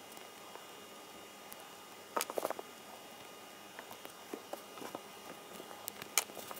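Small plastic parts of a Nendoroid figure being handled: a cluster of clicks and rubbing about two seconds in, then scattered light clicks and one sharper click near the end as the hand pieces are worked on and off their pegs.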